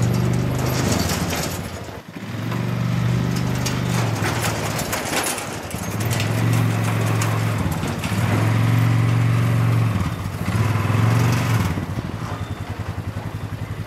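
ATV engine under throttle as it backs a utility trailer, picking up and easing off several times, then settling to a fast, even idle about twelve seconds in.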